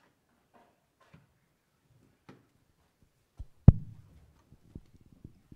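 Handheld microphone being handled: faint scattered clicks and rustles, then one loud thump about three and a half seconds in with a short low rumble after it, and light tapping and rubbing as the microphone is held.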